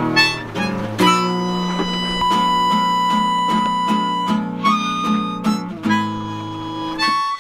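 Harmonica and acoustic guitar playing together, the harmonica holding one long note in the middle over plucked guitar notes. The music cuts off abruptly near the end.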